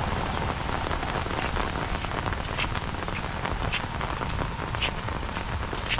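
Steady rain falling, with a few heavier drops striking more sharply now and then.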